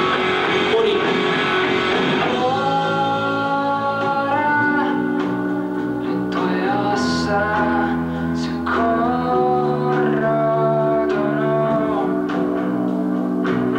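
Music: a singing voice over guitar, with sustained chords that settle in about two seconds in.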